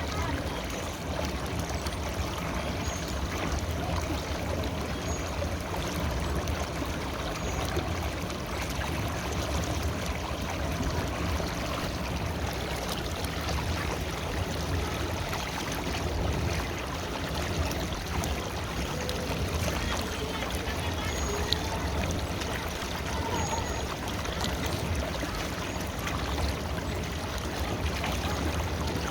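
River water flowing steadily over rocks, a continuous rushing and gurgling with a low rumble underneath.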